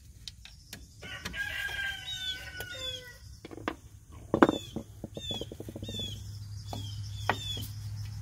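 Metal clicks and clinks from a spring tool working the steel hold-down and return springs on a drum brake's shoes and backing plate. One loud clank comes about halfway through, followed by a quick run of rattling clicks. Birds call throughout: a long call about a second in, then a short chirp repeated about twice a second, and a steady low hum comes in near the end.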